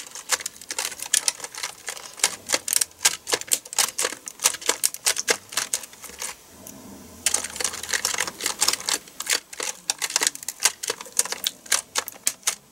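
Computer keyboard keys clacking quickly and irregularly as a gel cleaner is pressed down over them by hand, with a short lull a little past halfway.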